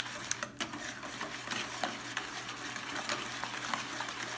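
Wire whisk beating a runny egg mixture in a stainless steel bowl: a fast, steady clatter of the wires scraping and clicking against the metal.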